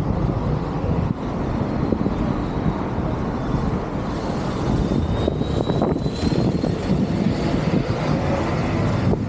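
Steady, loud engine rumble of passing motor traffic or an aircraft overhead. A faint whine rises slightly in pitch midway.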